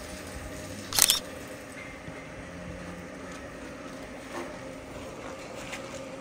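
Cattle barn ambience by a pen of Jersey heifers: a steady low hum with a few faint knocks. About a second in there is one sharp, short burst of noise, the loudest sound here.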